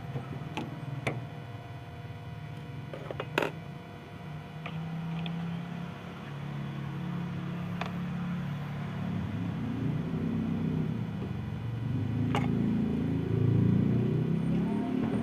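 Low motor-vehicle engine rumble that grows louder over the last several seconds, with a few sharp clicks on top.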